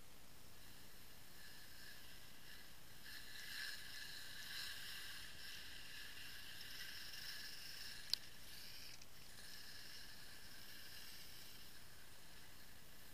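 Faint, steady hiss of skis sliding over snow, muffled through the camera, with one sharp click about eight seconds in.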